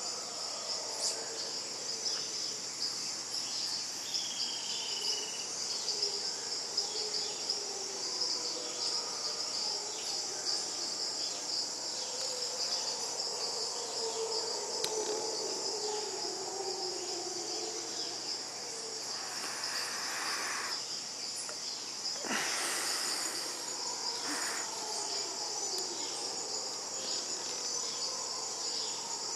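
A steady, high-pitched chorus of insects, with distant mantled howler monkeys howling faintly underneath in long, wavering calls through the middle. Two brief rushing noises come a little after twenty seconds in.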